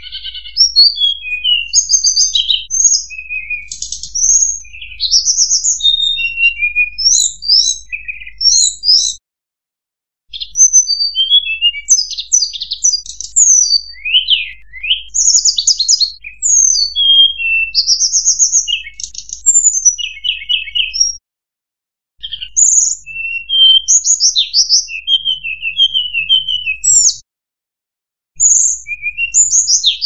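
Mangrove blue flycatcher song played as a lure call: a rapid, varied run of high sweet whistles, slurred notes and short trills in phrases. The sound cuts out briefly three times.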